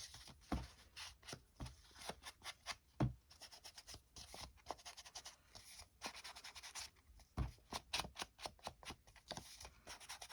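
Ink pad rubbed in quick, short strokes along the edges of paper card to age them, a steady scratchy rubbing with a few soft knocks, about half a second, three seconds and seven seconds in.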